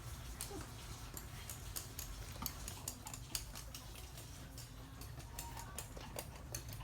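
Toy poodle's claws clicking and tapping on a hard floor: a string of light, irregular clicks, a few of them sharper.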